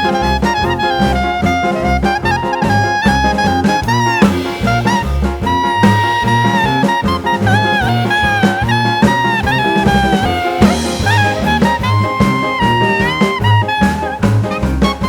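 Background jazz music with a swing feel: a saxophone- or trumpet-like lead melody over walking bass and drums.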